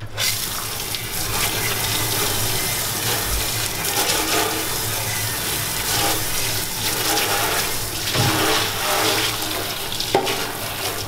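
Sink sprayer on a hose spraying water onto a flat steel cutout in a stainless steel sink: a steady hiss and splash that comes on suddenly. The water is rinsing the copper-effect chemical stain off the steel.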